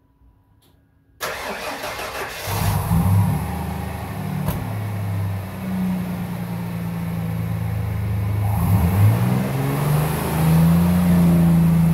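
Freshly rebuilt Ford 300 cubic-inch straight-six on its first start: the starter cranks for about a second, then the engine catches and runs. Its speed rises and dips several times, with a sharp click about four and a half seconds in.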